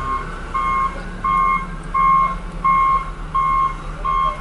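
Backup alarm of a reversing snow-removal vehicle beeping steadily, about seven beeps at roughly one and a half a second, over the low running of a diesel engine.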